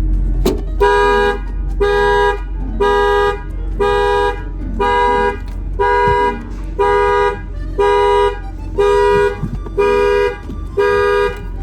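Car alarm sounding the car's horn in short blasts at about one per second, set off by a bump against the parked car.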